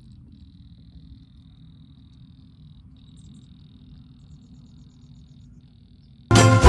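Faint low rumble under a steady high-pitched electronic whine that drops out briefly a few times, with a short run of faint rapid ticks about halfway through. Loud music with jingling bells comes in near the end.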